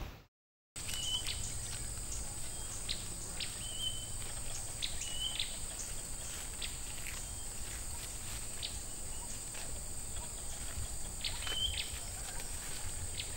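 Outdoor rural ambience: a steady high drone of insects with short bird chirps every second or so over a low rumble. It starts after a brief silence at a cut.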